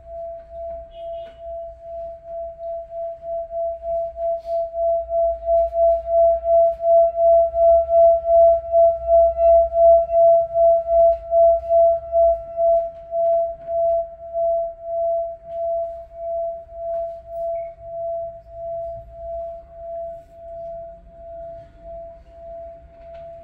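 Singing bowl played by rubbing its rim, giving one sustained ringing tone with a regular pulsing waver. It swells to its loudest about halfway through, then keeps ringing and slowly fades.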